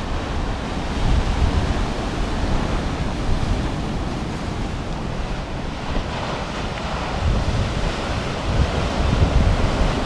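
Mediterranean surf breaking and washing over a rocky shore in a heavy swell: a steady rush of foaming water that swells near the end as a bigger wave breaks. Wind buffets the microphone in low rumbling gusts.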